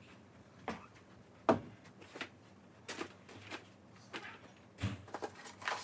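Scattered knocks and light bumps of things being handled in a small room, about eight in all, the loudest about a second and a half in.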